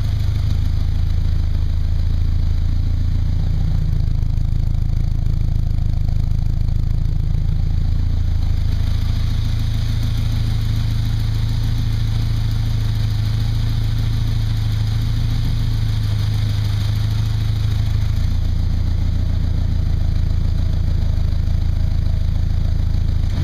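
Chevrolet V8 engine idling steadily.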